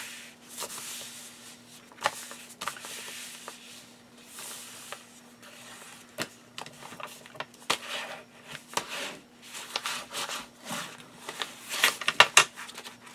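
Hands rubbing and pressing a freshly glued paper page flat onto kraft cardstock: a dry, papery swishing with scattered light taps. Near the end a bone folder is run along the paper's edge, giving a few sharper scraping clicks, the loudest sounds here.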